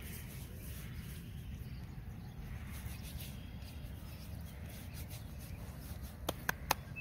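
Steady low outdoor rumble, then near the end three quick sharp slaps as bait-covered hands are clapped together to knock off sticky dough.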